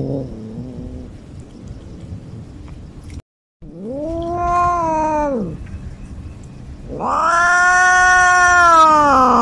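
Cat yowling: two long, drawn-out yowls that rise and then fall in pitch, the second longer and louder, after a short call at the very start.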